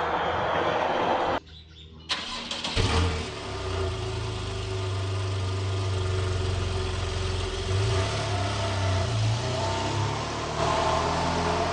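Porsche 911 flat-six engine starting: a short crank about two seconds in, catching with a brief rise in revs, then settling into a steady idle. Before it, a steady noise cuts out about a second in, leaving a moment of near quiet.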